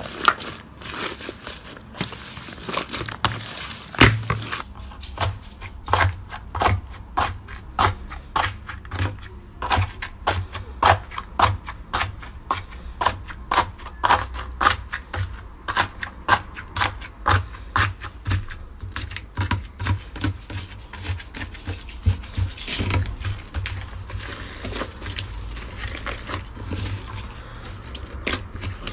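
Slime being pressed, squeezed and folded by hand in a glass dish, giving a fast, irregular run of crisp crackling clicks and pops. The clicks grow denser a few seconds in, once the slime studded with small foam beads is being worked.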